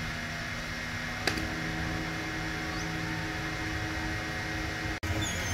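Steady mechanical hum with faint steady tones, like a fan or motor, with one sharp click about a second in and a momentary dropout near the end.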